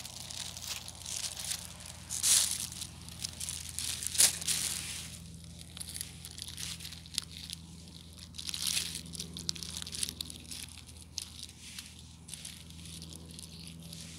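Dry leaf litter and spiky sweet chestnut burrs crackling and crunching underfoot and in the hand as chestnuts are gathered, with louder crunches about two and four seconds in.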